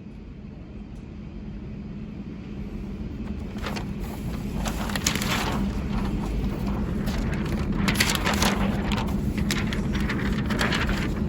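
Low steady rumble of a running vehicle, growing louder, with repeated rushing noise swells over it.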